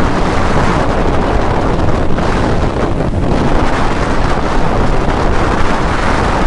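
Steady wind rushing over the microphone of a motorcycle riding at road speed, with the motorcycle's running noise beneath it.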